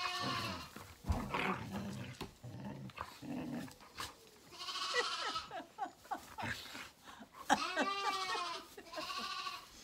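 Zwartbles lambs bleating, several wavering calls of about a second each, with low growling from puppies between them.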